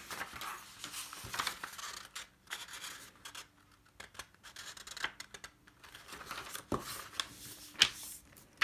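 A letter-sized sheet of paper rustling as it is folded in half and creased, with a few sharp crinkles near the end.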